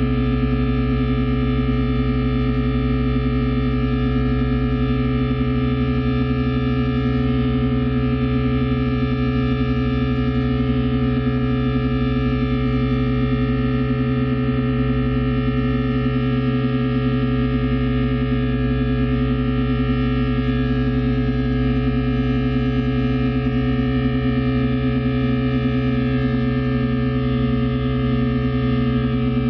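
Experimental drone music: a dense chord of many steady, unchanging tones held together, with a slow pulsing beat in the low tones that grows stronger in the second half, from guitar played through a MIDI controller, possibly blended with rubbed-balloon tones.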